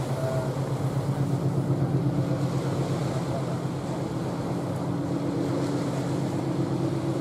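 Diesel engines of the car ferry Barfleur running as she gets under way: a steady low drone with a fast throb.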